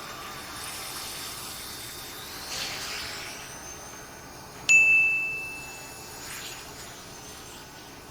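High-pitched, chime-like ringing tones from a soundtrack. A thin sustained tone slides upward, then a sudden bright ding about halfway through rings for about a second before fading.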